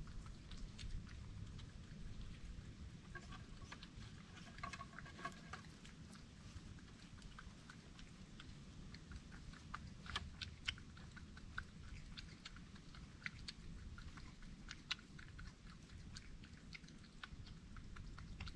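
A small wild mammal chewing and crunching dry food, with scattered wet bites and crackles. A brief faint high pitched sound comes about four seconds in.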